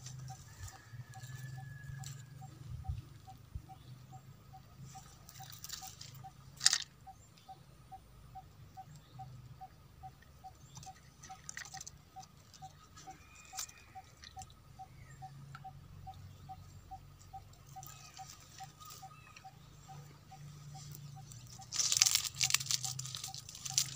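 Quiet streamside ambience: a faint short note repeating a little over twice a second over a low steady hum, with a single sharp click about a quarter of the way in. Near the end comes a burst of rustling and crackling as the fishing rod is shifted among the leaves.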